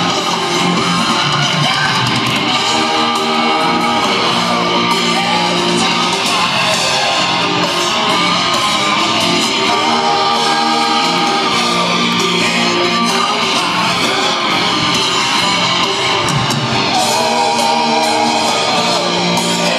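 Live rock band playing through a concert PA, heard from among the audience: electric guitar with a sung vocal line, loud and steady throughout.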